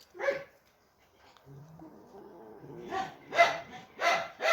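A dog barking: one bark just after the start, then a run of barks about every half second from about three seconds in.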